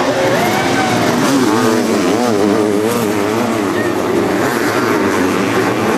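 Sidecar motocross outfits racing, their engines revving hard up and down so the pitch keeps rising and falling.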